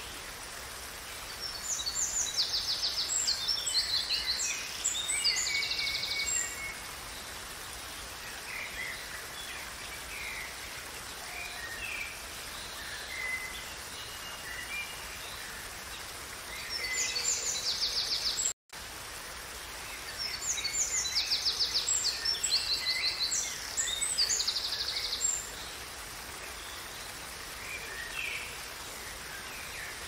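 Steady rush of falling water, with birds singing over it in bursts of rapid, high trilling notes a few seconds long, twice. The sound cuts out to silence for a split second about two-thirds of the way through.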